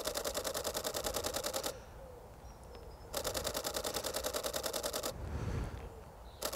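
Olympus OM-D E-M1 Mark II mirrorless camera firing its shutter in rapid bursts, about ten clicks a second. There are three bursts of roughly two seconds each, with short pauses between them.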